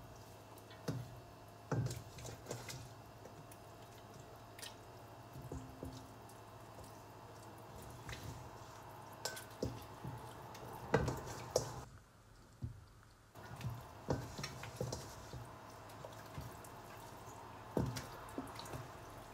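Raw marinated chicken being squeezed and turned by hand in a stainless steel bowl: wet squelching with irregular soft knocks of meat against the bowl, over a steady faint hum.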